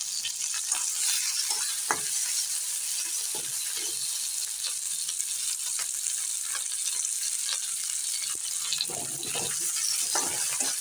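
Green capsicum pieces and ginger-garlic paste sizzling steadily in hot oil in a wok, stirred with a spatula that scrapes and taps against the pan now and then, more often near the end.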